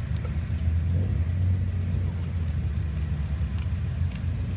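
Nissan Skyline C210 'Japan' with a loud aftermarket muffler, its exhaust giving a low, steady rumble as the car pulls slowly away.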